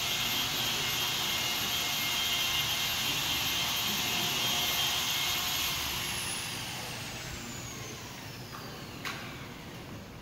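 A high-speed electric blower or vacuum motor running with a loud rush of air and a high whine. About halfway through it is switched off and winds down, its whine falling steadily in pitch as the rush fades. A single sharp click comes near the end.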